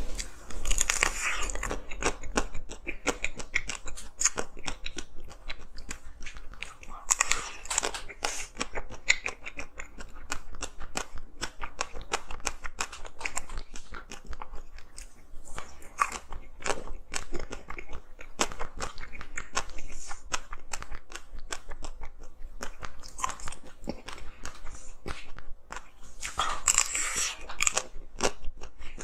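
A person biting and chewing hard frozen ice, with crisp crunches and crackling throughout. There are louder bites about a second in, around seven seconds in and near the end.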